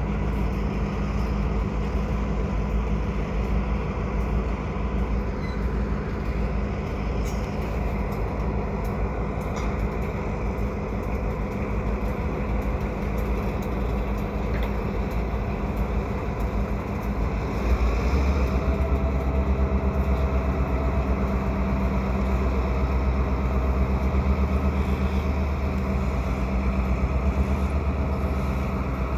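Two EMD GP38-2 diesel locomotives' two-stroke 16-cylinder engines running steadily with a low, even hum. About two thirds of the way in they throttle up and get louder.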